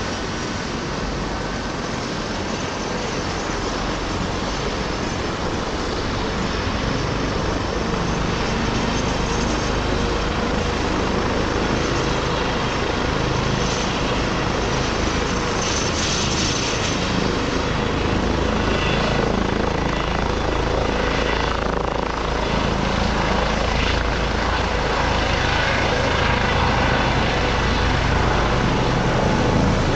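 Airbus (Eurocopter) EC135 twin-engine helicopter running on a rooftop helipad, then lifting off. Its turbines whine and its rotor beats steadily, and the sound grows gradually louder as it takes off.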